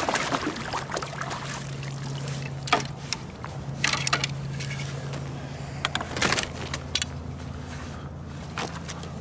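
A hooked largemouth bass splashing at the surface beside a kayak as it is played in and scooped into a landing net, with scattered short splashes and knocks and rattles of gear. A steady low hum runs underneath.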